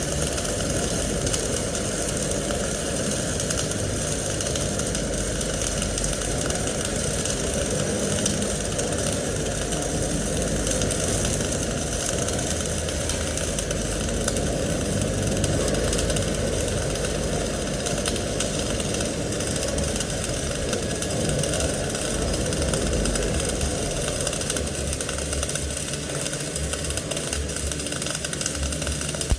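Flux-cored arc welding: a steady, dense crackle and hiss from the arc as a bead is run, cutting off suddenly near the end.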